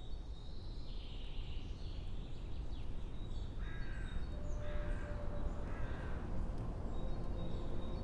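A crow cawing three times, about a second apart, over a steady low rumble.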